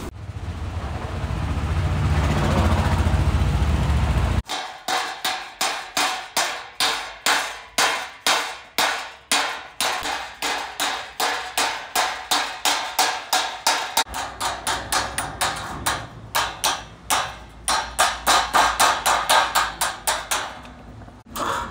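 A low rumbling noise swells for about the first four seconds. Then a hammer strikes a strip of galvanized sheet steel about twice a second, quickening near the end, each blow ringing. The blows are folding the strip into an angled profile for a replacement rocker panel.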